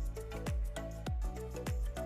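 Background music with a steady beat: deep kick drums that drop in pitch, about two a second, over held bass notes and a short repeating melody.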